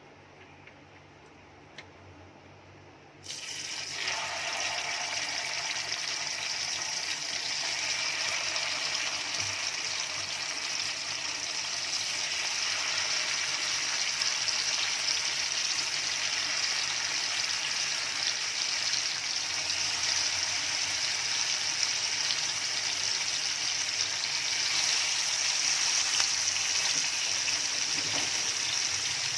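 Marinated sankara (red snapper) fish pieces sizzling as they shallow-fry in hot oil in a pan. The sizzle starts suddenly about three seconds in as the first pieces go into the oil, grows a second later as more are added, and then goes on steadily.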